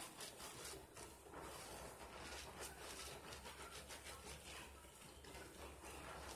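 Soapy mesh bath poufs squeezed in the hands, giving faint, irregular squishing and crackling of thick lather, several soft pops a second.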